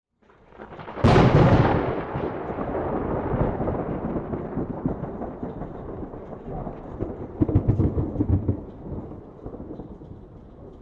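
Thunderstrike: a rising crackle breaks into a sharp, loud crack about a second in, then a long low rumble rolls on. A second burst of crackling booms comes about seven and a half seconds in before the rumble fades.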